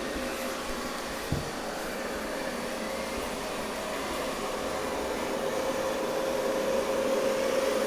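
Roborock S7 MaxV robot vacuum running as it cleans along the edge of the room: a steady whirring hum with a steady tone. It grows gradually louder toward the end, with one faint knock about a second in.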